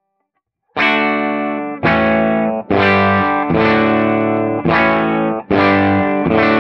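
Les Paul-style electric guitar played through a valve amplifier switched to fixed-bias output, with negative feedback on and no cathode bypass capacitor. About seven overdriven chords are strummed in a row, starting about three-quarters of a second in.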